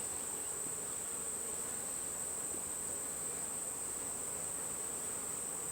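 Honeybees buzzing steadily around an open beehive, a continuous hum, with a steady high-pitched tone sitting above it.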